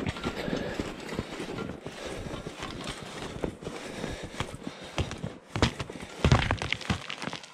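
Footsteps crunching through snow at a walking pace, with brush scraping past, and a few louder thumps about six seconds in.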